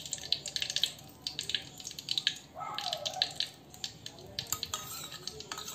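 Desi ghee poured from a steel bowl into a hot kadhai, crackling with scattered small pops and drips. About two and a half seconds in, a short scrape of the steel bowl against the pan.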